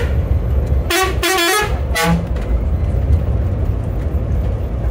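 Bus horn sounding three times, with a wavering tone: a short toot about a second in, a longer blast right after it and a brief toot at about two seconds. Under it the bus engine runs with a steady low rumble in the driver's cabin.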